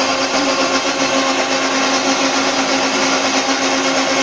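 Electric mixer grinder running steadily, grinding a wet masala paste in its jar: a constant motor hum under an even whirring noise.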